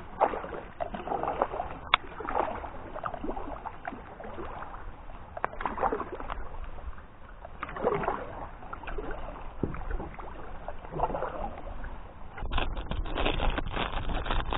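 Kayak paddle strokes: the double-bladed paddle dipping into and pulling through calm water, swishing and dripping every second or two. Near the end, crackling of a plastic soft-bait package being handled.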